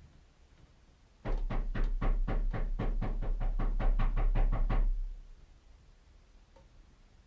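Hard, rapid knocking on a door: about sixteen blows in quick succession, four or five a second, each with a deep boom, starting about a second in and stopping a little before five seconds. The knocking is insistent and rough.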